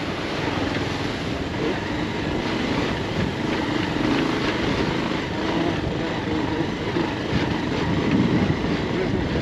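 Bajaj Pulsar 220F motorcycle riding along a rough dirt track, its single-cylinder engine running steadily with road noise from the tyres.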